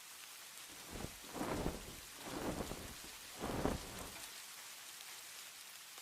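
Steady rain falling, with a rumble of thunder that swells in three surges in the middle and dies away.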